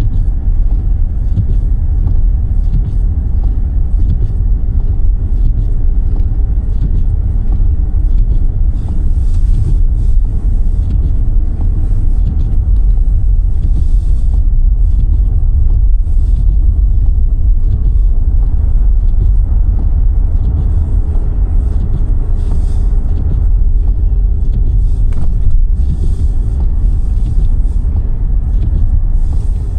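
A car being driven: a steady, heavy low rumble of engine and road noise, with faint brief hisses coming and going above it.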